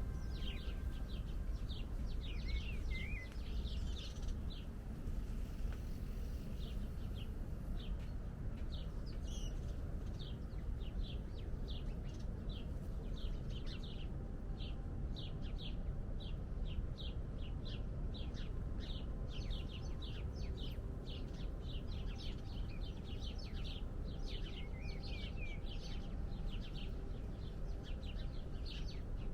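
A chorus of small birds chirping in quick, short calls, many overlapping, over a steady low rumble.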